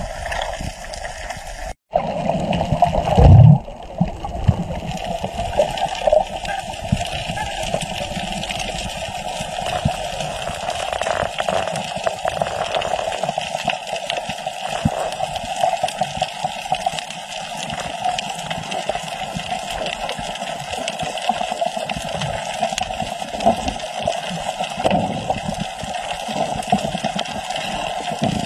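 Steady, muffled underwater water noise picked up by a camera below the surface, with one loud low thump about three seconds in.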